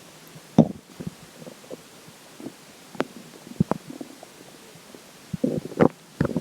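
Human stomach gurgling with water in it: short bubbly gurgles and sharp pops come at uneven intervals. The loudest pops come just over half a second in and again near the end.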